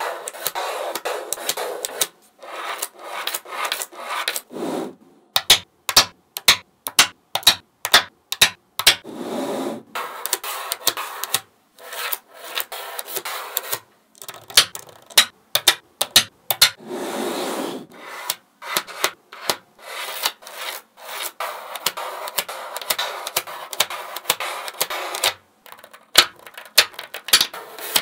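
Small magnetic balls being slid across a tabletop with a rubbing, scraping sound, broken by runs of sharp clicks as balls snap together into place; the clicks come thickest a few seconds in and again near the end.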